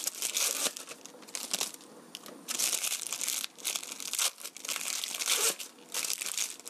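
Plastic film wrappers of individually wrapped processed cheese slices crinkling as they are peeled off, in a series of short rustling bursts.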